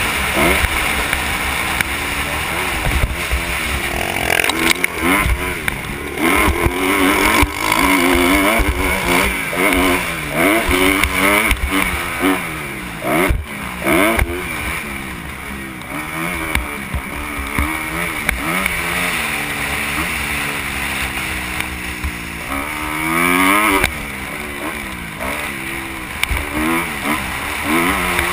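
Kawasaki KX250 motocross bike's engine, heard from the rider's helmet, revving up and dropping back over and over as it accelerates and shifts around the track, with wind buffeting the microphone and a sharp knock about halfway through.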